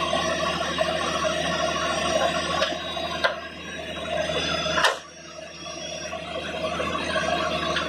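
Horizontal directional drilling rig's engine running steadily, with a few sharp clicks and a brief drop in level about five seconds in.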